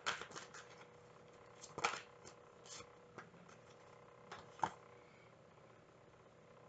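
Tarot cards being shuffled and handled by hand: a scatter of soft card clicks and rustles, the sharpest about two seconds and four and a half seconds in, then stopping. A faint steady hum runs underneath.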